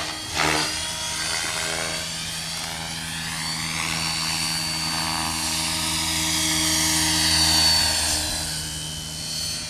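Align T-Rex radio-controlled helicopter in fast flight: a steady high buzzing whine from its motor and rotors, like a bumblebee. The pitch sweeps up and back down as it flies around, and it grows loudest as it passes close near the end.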